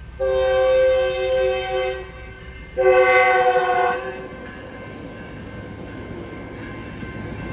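Metrolink commuter train's horn sounded for a grade crossing: a long blast of about two seconds, then after a short break a second blast of about a second, each a chord of several steady notes. The train's running rumble follows.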